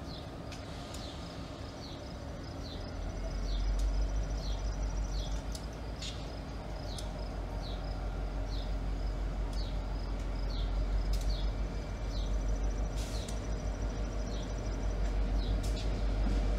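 EMD GP50 locomotive's 16-cylinder two-stroke diesel engine running as the unit creeps closer, a low pulsing rumble that swells about three seconds in. A bird repeats a short, high, downward-sliding chirp over it.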